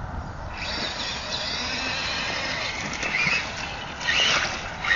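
Radio-controlled rock crawler truck driving on ice with its tyres slipping. There is a steady hiss, and a short rising squeal about four seconds in.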